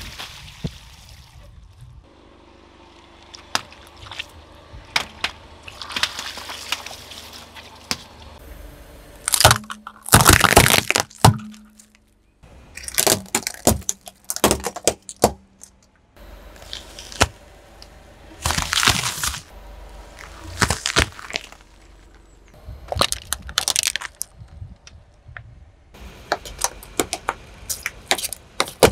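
A car tyre rolling over and crushing a string of objects, with many sharp cracks, snaps and crunches as brittle plastic and wood break under the wheel. Water-filled balloons burst with a splash near the start.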